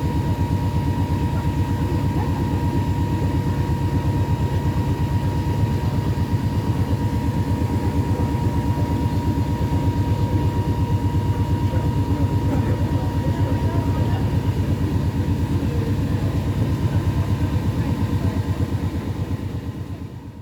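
Tour boat's engine running steadily at a constant speed, with a fast, even throb.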